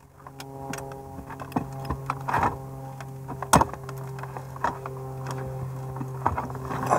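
Scattered clicks and knocks of plastic and metal dash parts being handled while the stereo unit is worked into the centre console, the loudest about three and a half seconds in, over a steady electrical-sounding hum.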